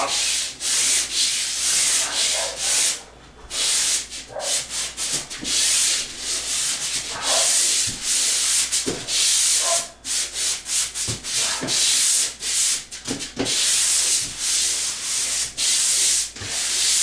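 Pole sander with a swivel-head sandpaper pad scraping back and forth over a bare drywall ceiling in repeated rasping strokes, with a short pause about three seconds in.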